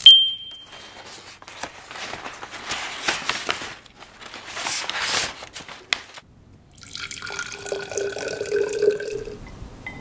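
A short bright chime at the start, then crinkling of kraft wrapping paper and flower stems being handled. About seven seconds in, water runs into a glass vase for a couple of seconds.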